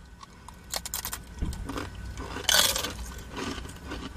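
Crisp Paqui ghost pepper tortilla chips crunching as they are bitten and chewed, in scattered crackles with one louder crunch about two and a half seconds in.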